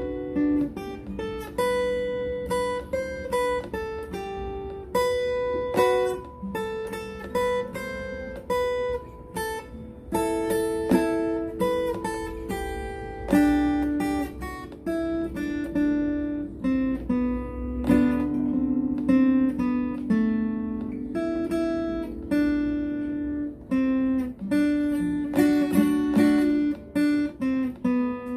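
Guitar picking a single-note melodic lead line in G: plucked notes struck one after another, several a second, over sustained lower notes.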